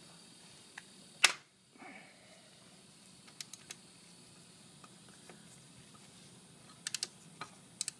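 Light metallic clicks of a wrench on a motorcycle's 12 mm oil drain plug as it is loosened. There is one sharp, loud click about a second in, then a few scattered clicks in small groups near the end.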